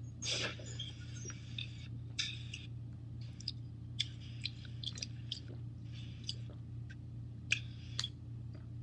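Someone drinking from a thin plastic water bottle: gulping and swallowing clicks mixed with crinkling of the plastic, loudest just after the start. A steady low hum runs underneath.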